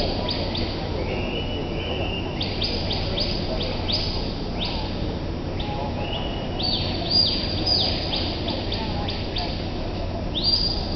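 Birds chirping almost without pause: short, high chirps falling in pitch, several a second, over a steady low hum.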